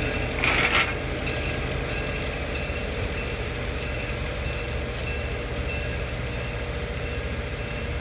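Diesel switcher locomotive's engine running steadily as it moves away along the track, with a brief high-pitched burst about half a second in.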